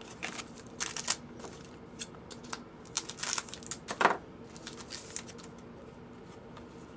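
Foil trading-card pack wrappers crinkling and tearing as packs are opened and cards handled: a run of short irregular rustles and clicks that dies away after about five seconds, over a faint steady hum.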